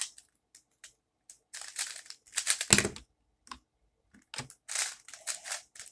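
Plastic clacking of a Rubik's-brand 3x3 speed cube being turned in quick bursts, with a heavier knock about three seconds in.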